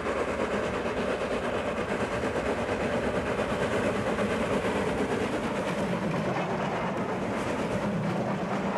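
Steam locomotive hauling a train, a steady running noise of the engine working and the train rolling along the track.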